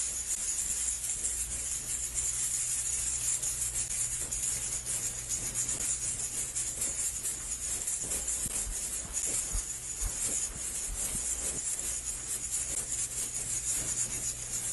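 Music made up mostly of a fast, steady rhythm of shaken jingling percussion over a low steady hum.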